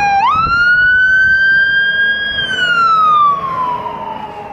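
Fire engine siren wailing: the pitch swoops up quickly, holds, then slides slowly back down. The siren grows quieter toward the end as the Pierce pumper goes past.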